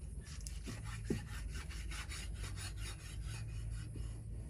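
Cleaver sawing back and forth through raw pork against a wooden chopping block, a quick, even run of strokes several a second, with one sharper knock about a second in.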